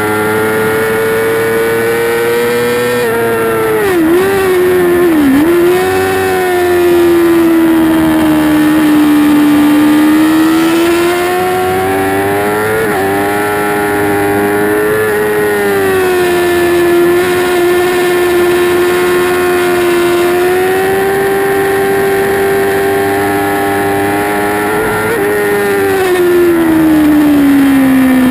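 Onboard sound of a 2008 Yamaha YZF-R6's 600 cc inline-four engine at high revs on a racetrack, its pitch rising and falling with the throttle and gear changes. The pitch dips sharply twice about four and five seconds in, and it falls steadily near the end as the bike slows.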